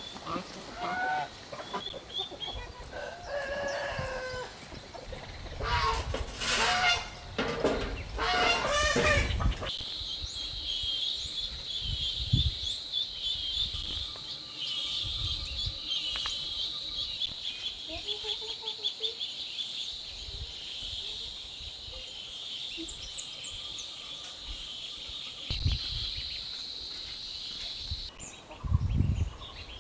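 Chickens clucking and a rooster crowing in the first third, followed by a steady high-pitched buzz that runs until near the end.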